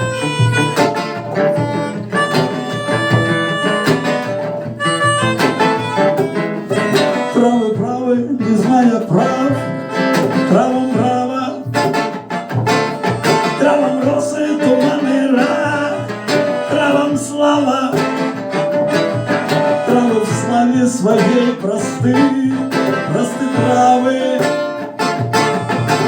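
A band playing live, led by guitars, with a wavering melody line that comes in over the chords about seven seconds in.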